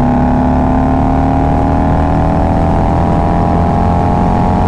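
Harley-Davidson Road Glide's V-twin engine running steadily at highway cruise, heard from the rider's seat over wind rush. Its pitch sags very slightly as the throttle eases.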